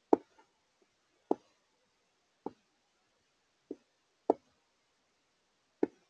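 Six sharp knocks at irregular intervals of about a second: a Carolina wren pecking at seed, its beak striking the plastic tray of a window feeder.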